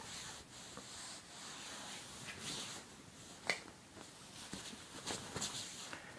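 Fabric rustling and rubbing on a bedcover as a cat rolls and paws at a soft toy, with scattered light clicks and one sharper tap about three and a half seconds in.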